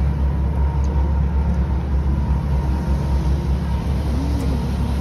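Steady low rumble and rushing from a moving cruise boat: engine noise and water rushing past the hull, with wind on the microphone.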